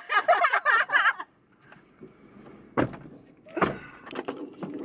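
A woman laughing for about a second. Then come two dull thumps about a second apart and a few light clicks as a hand reaches for and handles the camera.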